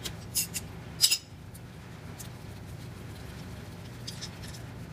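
A few light metallic clicks and clinks from the 13 mm socket and the caliper bolts as the bolts are taken out of the back of a brake caliper. The loudest clink comes about a second in, with a couple of faint ones near the end, over a steady low hum.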